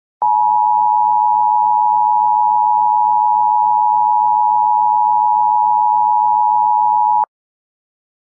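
Emergency Alert System attention signal: a loud, steady electronic alert tone that starts after a moment of silence, holds for about seven seconds and cuts off suddenly. It marks the start of an emergency alert, ahead of the spoken message.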